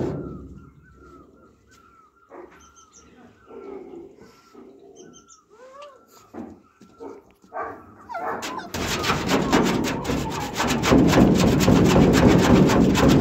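A pug whimpering at a closed door in short high whines, about two a second. About nine seconds in, a loud, steady scratchy noise starts as the pug stands up and paws at the wooden door.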